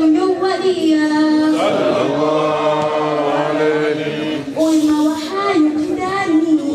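Voices chanting a Mawlid devotional song, with long held notes that glide from pitch to pitch.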